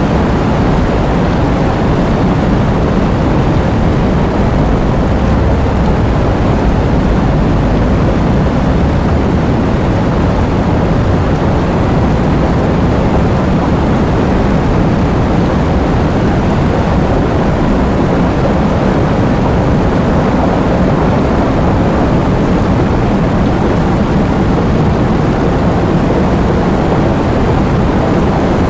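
Heavy thunderstorm: a loud, steady roar of rain over a deep, continuous low rumble, with no separate thunderclaps standing out.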